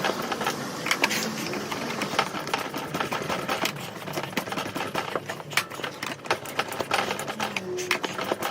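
Sped-up workshop tool noise from work on a scooter's seized rear wheel: a dense, irregular run of rapid metallic clicks and clatter.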